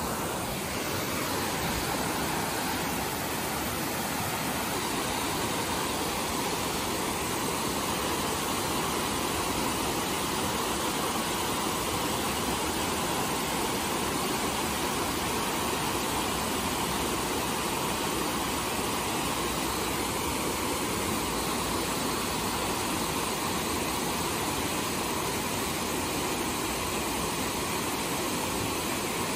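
Creek water spilling over a low stepped weir, a steady rushing of falling water.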